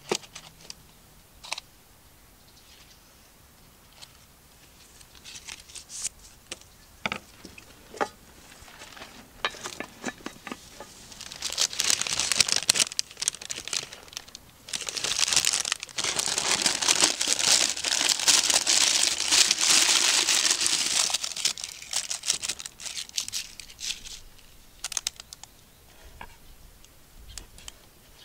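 Brown baking paper crinkling and rustling as it is handled and folded around a ball of bread dough. A few light taps and clicks come first, then after about ten seconds a long spell of crinkling that is loudest in the middle and dies down to scattered rustles near the end.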